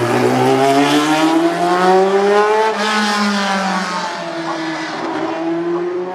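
Group C prototype race car engine running hard. Its pitch climbs for about three seconds, drops back, then climbs again as the revs build.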